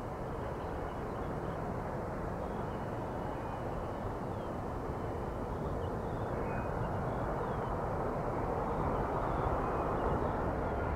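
Jet engine noise from a Boeing 787 climbing out after takeoff: a steady low rumble that slowly grows louder.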